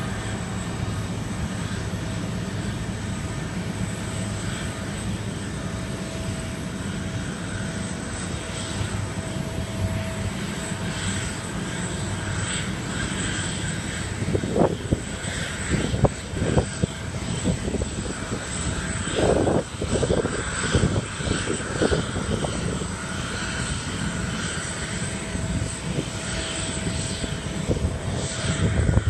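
Boeing 777-300ER's twin GE90-115B turbofan engines running at taxi power: a steady jet-engine noise with a faint steady tone, with several brief louder bursts in the second half.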